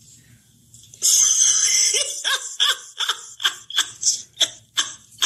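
A sudden burst of breath about a second in, then a cartoon character laughing in short, rhythmic bursts, about three a second, each falling in pitch.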